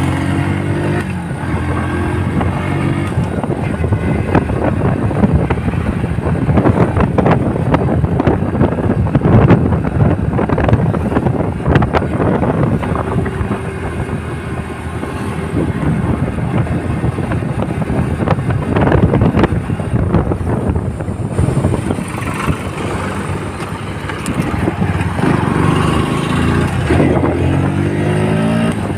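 Motorcycle engine running under way, with wind rumbling on the microphone. The engine note rises again in the last few seconds.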